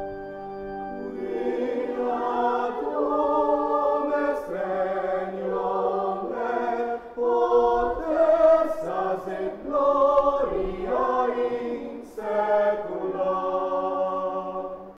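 Church choir singing in phrases with short breaks between them. The voices come in about a second in over a held organ-like chord.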